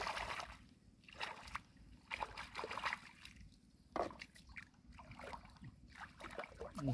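Shallow muddy water sloshing and splashing in irregular bursts about once a second, with a short falling cry near the end.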